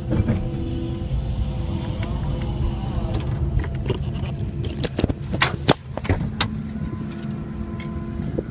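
Caterpillar 312E L hydraulic excavator's diesel engine running under load, with a whine from the hydraulics that shifts in pitch as the arm and bucket move. Several sharp knocks come about halfway through as the bucket works.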